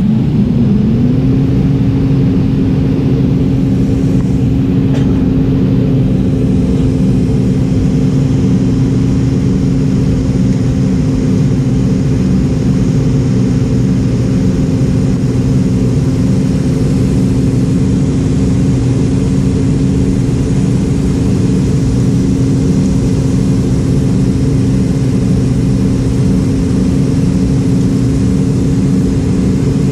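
Steady cabin drone of a McDonnell Douglas MD-88 in flight: its rear-mounted Pratt & Whitney JT8D turbofans hum under a rush of air. A steady tone in the hum rises briefly and settles about a second in.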